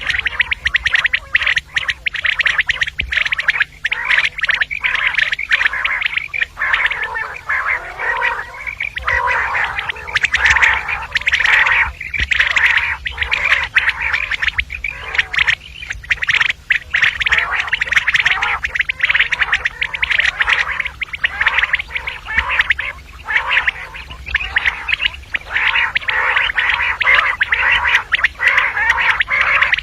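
Female common quails calling over and over in a dense, unbroken chatter of quick clicking and burbling notes, the kind of call used as a lure for quail hunting.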